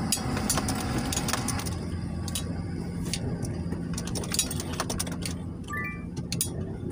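Vehicle engine running at low speed, heard from inside the cabin as it rolls across a dirt lot, with frequent small clicks and rattles of loose things in the vehicle. A brief rising chirp sounds near the end.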